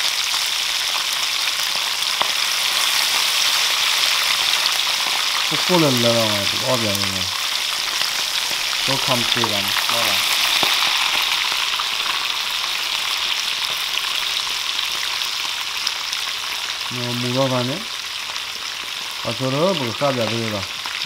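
Whole fish deep-frying in hot oil in a pan, a steady loud sizzle of bubbling oil. A voice sounds briefly four times over it.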